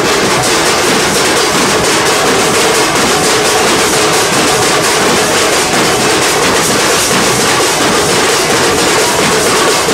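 Kirtan percussion: several rope-laced barrel drums (dhol) beaten fast with sticks, under the ringing of metal hand gongs, in a dense, unbroken din.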